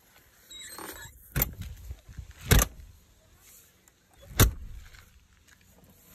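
A scraping slide, then three loud bangs over about three seconds, from tack boxes being loaded into a horse trailer and the trailer being shut.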